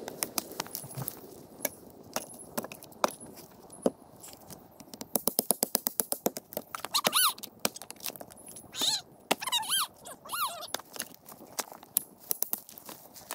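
Hatchet knocks on firewood at a chopping block over a crackling campfire. A run of high squeaky chirps, each rising then falling in pitch, sounds several times midway.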